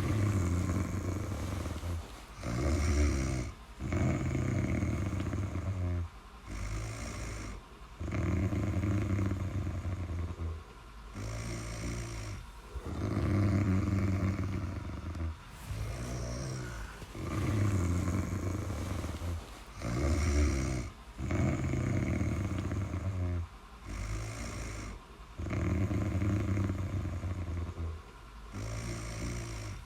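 A person snoring in a steady rhythm, alternating a longer snore and a shorter one with each breath, about one breath every four seconds.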